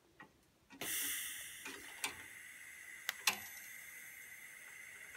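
DC TIG welding arc on stainless steel, struck by lift-arc ignition: a few faint ticks as the tungsten electrode touches the workpiece, then, just under a second in, the arc catches and runs as a steady hiss with a faint high tone, broken by a few sharp clicks.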